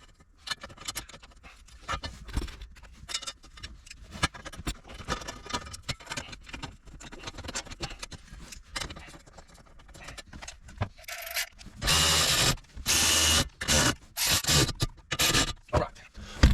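Hands handling car interior parts: scattered light clicks and knocks, then, about three-quarters of the way in, several loud scraping, rustling bursts about a second long each.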